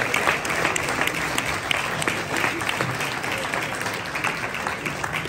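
Saleroom crowd applauding a lot just sold at auction: dense clapping that eases off a little toward the end.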